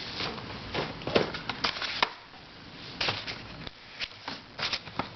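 Plastic puzzles and their packaging being handled: irregular clicks, knocks and rustles as items are picked up and set down.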